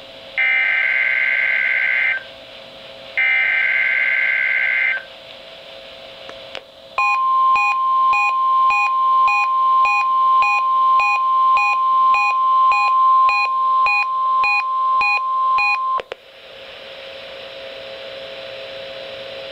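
NOAA Weather Radio Required Weekly Test heard through a Midland WR-300 weather radio: two bursts of warbling SAME digital header data, then the steady 1050 Hz National Weather Service warning alarm tone for about nine seconds, with a beep pulsing about twice a second over it. The tone cuts off suddenly, leaving radio hiss.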